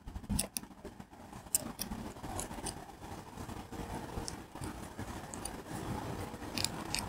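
Faint scattered clicks and ticks of small threaded bolts being turned by hand into the back of a metal grille badge, over a low steady background rumble.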